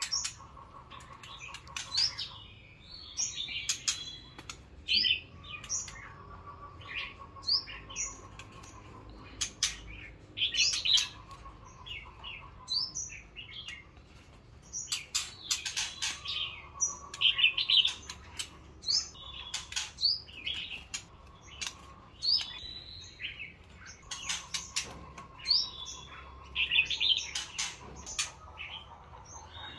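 Caged white-rumped shamas calling: runs of short, sharp chirps and whistles, with sharp clicks in between.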